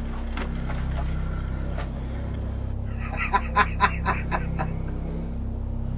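A man laughing in a run of short, sharp bursts, about four a second, starting about halfway through and stopping before the end. A steady low hum sits underneath.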